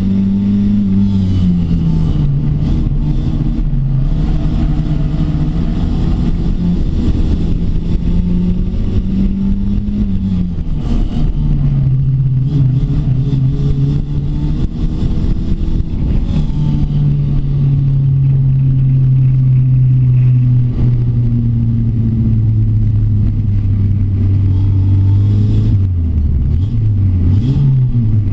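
Rookie Rod race car's engine heard from inside its stripped, roll-caged cabin while racing: the revs rise and fall, hold a long steady pull in the middle, then dip quickly a couple of times near the end. Road noise and occasional short knocks and rattles run under it.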